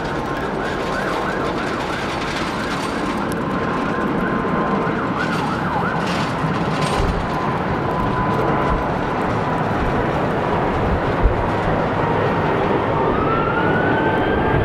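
Emergency vehicle siren, first a fast-repeating yelp, then near the end a slow rising and falling wail, over a rumble of aircraft noise that grows louder.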